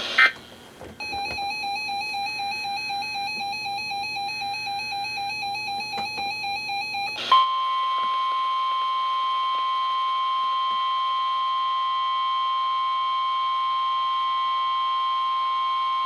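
Weather alert radios sounding their warbling, repeating alarm beep for about six seconds. Then comes the NOAA Weather Radio 1050 Hz warning alarm tone, one steady unbroken tone held for about nine seconds, which signals that a warning broadcast follows.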